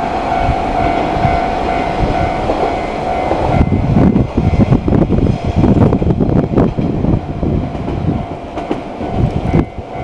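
Japanese railroad crossing alarms ringing a steady repeating tone, then from about three and a half seconds in a Watarase Keikoku Railway WA89-310 series diesel railcar passes with a loud irregular clatter of wheels on rail that covers the alarm. Near the end the train sound thins and the alarm tone is heard faintly again.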